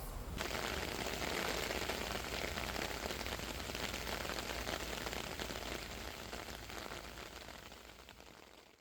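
Rain falling in a steady hiss, fading out over the last few seconds.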